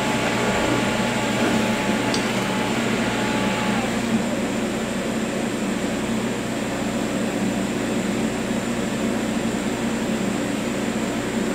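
Steady mechanical fan hum with a low drone, and a faint high whine that stops about four seconds in.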